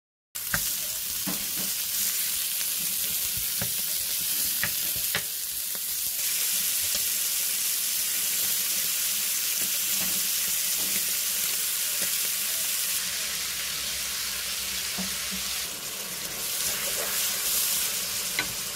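Sliced duck meat sizzling steadily as it stir-fries in a stainless steel pan, with scattered taps and scrapes of a wooden spatula stirring it.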